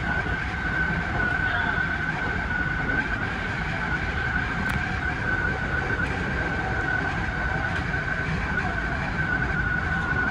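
Odakyu 3000-series electric train running, heard from inside the driver's cab: a steady rumble from the wheels and running gear with a steady high whine held throughout.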